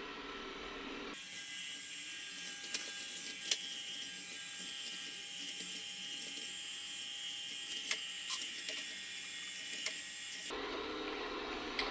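Xiaomi X10+ robot vacuum-mop running, a steady mechanical whir with a thin whine and several sharp clicks from its moving parts. The sound changes abruptly about a second in and again near the end.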